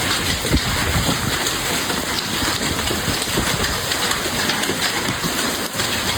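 Heavy hail coming down hard: a dense, steady roar of countless stones striking, with a few sharper hits standing out.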